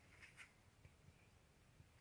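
Near silence: room tone, with two faint light clicks early on.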